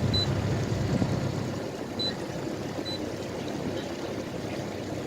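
Twin 60 hp Mercury Command Thrust four-stroke outboard motors running low and steady under way, with water rushing along the hull.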